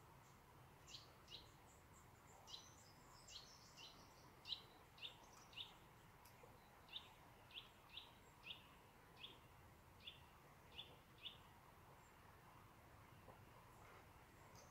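A small bird calling: a run of short high chirps, about two a second, that stops about eleven seconds in, over a faint outdoor hush.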